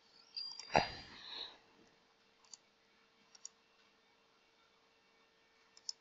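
A few faint, sharp computer mouse clicks while menus are opened, with a louder brief thump and rustle about a second in. A faint steady hum runs underneath.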